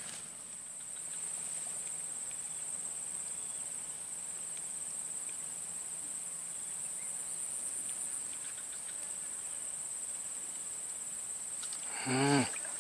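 Steady, high-pitched insect chorus: crickets or similar insects trilling continuously at one even pitch.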